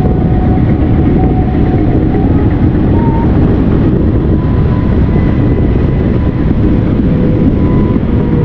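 Loud steady wind rushing over the microphone of a paraglider pilot in flight, with faint tones from the flight variometer that step up and down in pitch.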